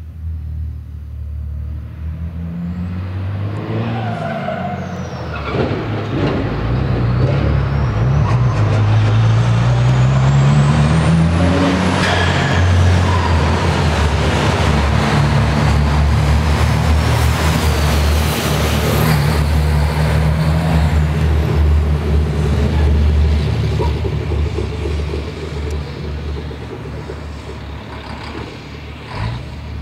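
Racing truck's diesel engine building up as it comes through the underpass: a low drone rising in pitch under acceleration, then running steadily at speed before fading away. A high whine rises and then falls along with it.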